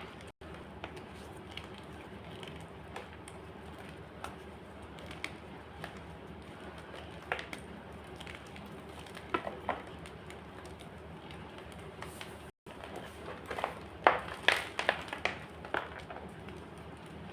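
White gym chalk being crushed, giving scattered sharp crunches and crumbling crackles over a steady low hiss. A quick run of louder crunches comes about fourteen seconds in. The sound cuts out briefly twice.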